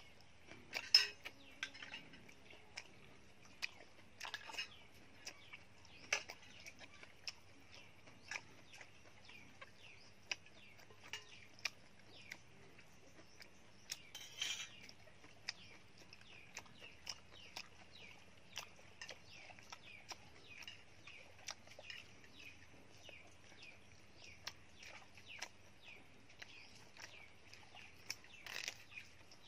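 Close-up eating sounds: chewing and the crisp tearing and snapping of fresh cabbage leaves, heard as scattered irregular clicks and crunches, the sharpest about a second in. Birds chirp faintly in the background.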